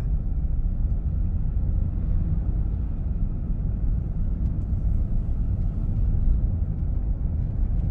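Steady low rumble of a car in motion, heard from inside the cabin: road and engine noise with no sudden events.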